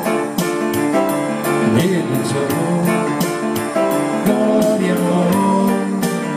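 Keyboard playing sustained chords over a steady beat with high percussion ticks: an instrumental passage of a live keyboard-and-vocal pop song, with little or no singing.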